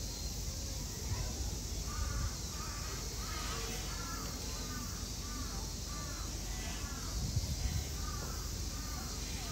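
A crow cawing in a quick series of short calls, about two a second, starting about two seconds in, over a steady high-pitched hiss.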